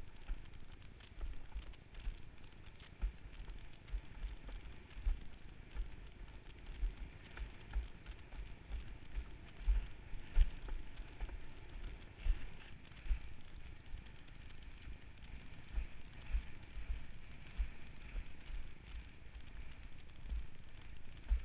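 Wind buffeting the microphone of a rig-mounted camera on a sailing windsurf board: an irregular run of low rumbling thumps over a faint steady rush of water and air.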